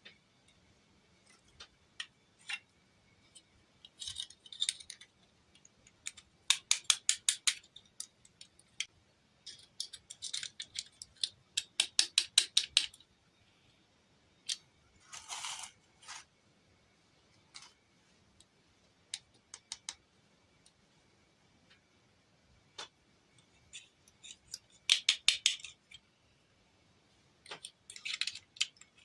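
Small hard objects being handled: scattered clicks and taps with several quick runs of rapid clicking, and a short scratchy rustle about halfway through.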